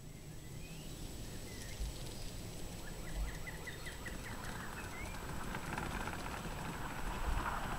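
Small birds chirping, with a quick trill of about eight notes roughly three seconds in, over a steady outdoor background that grows a little louder toward the end.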